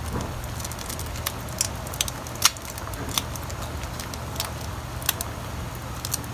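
A pan of chicken stew boiling while tomato sauce is squeezed into it from a plastic pouch. Scattered crackles and pops sit over a steady low hum, the sharpest about two and a half seconds in.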